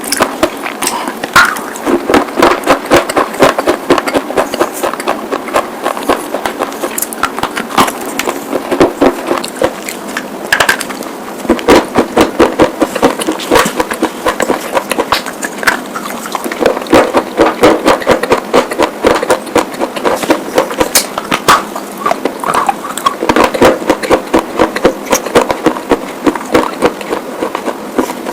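White slate pieces being bitten and chewed, a steady run of sharp, gritty crunches several times a second.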